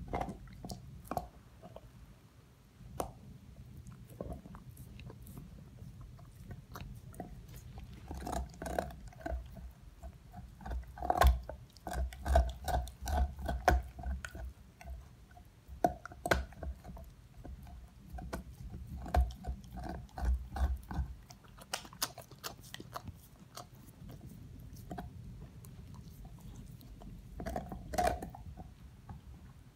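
Dog gnawing on a large bone, teeth scraping and clicking against it in irregular bouts of chewing. The chewing is busiest through the middle and again briefly near the end.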